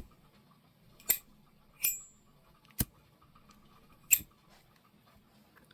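A 2007 limited-edition flip-top windproof lighter clicking: the lid is snapped open and shut in five sharp metallic clicks about a second apart, one of them with a brief ring.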